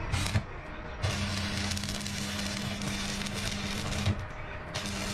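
Electric welding arc crackling on a damaged wheel rim, with a steady hum from the welder. A short burst comes first, then a run of about three seconds that stops abruptly and starts again after a brief pause.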